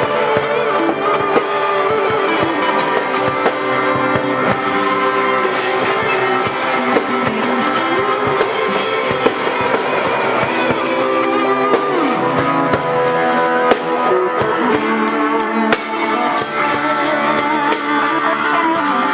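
Three guitars and a drum kit playing rock music together, with guitar lines over a steady drum beat. Fast, even cymbal hits come in over the last few seconds.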